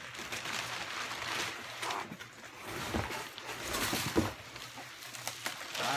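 Crumpled packing paper and plastic wrap rustling and crinkling as a large wrapped object is pulled out of a cardboard box, with a few knocks against the box.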